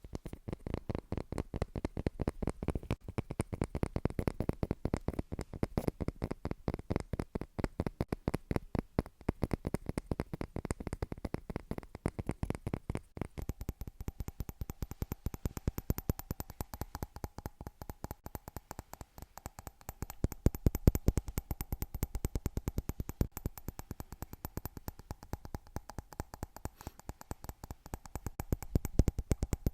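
A close, continuous run of small sharp taps or clicks on a hard object, many a second, made as an ASMR trigger. A faint steady tone joins about halfway through.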